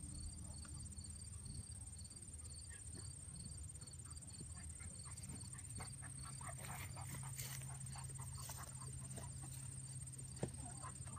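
Field insects: a steady high buzz with a quick, repeating high chirp about three times a second, joined in the second half by scattered short clicks and rustles.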